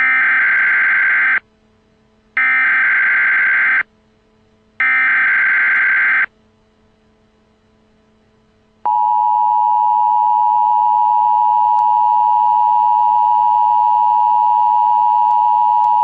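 Emergency Alert System header: three bursts of warbling digital data tones, each about a second and a half long and about a second apart, then the EAS two-tone attention signal, a steady sound of two close pitches (853 and 960 Hz) played together, starting about halfway through and still going at the end.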